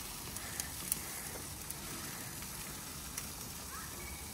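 Tomahawk steak sizzling as it cooks over the fire, a steady hiss with a few sharp pops.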